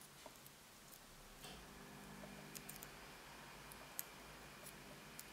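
Faint, scattered clicks and light handling of small cardstock pieces being folded and pressed by hand with a stylus.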